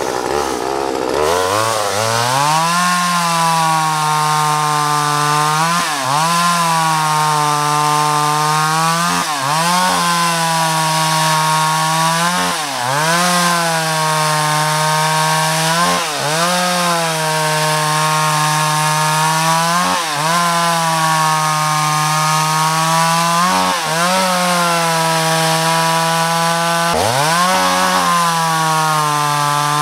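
Poulan-built Craftsman 2.0 chainsaw's two-stroke engine revving up and running at high revs while cutting through a log. Its pitch dips briefly and recovers every three to four seconds.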